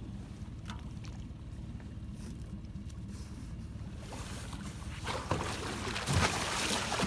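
Water splashing and sloshing as a hooked wels catfish thrashes at the surface. It grows from about four seconds in, with a couple of sharper splashes near the end, over a steady low rumble.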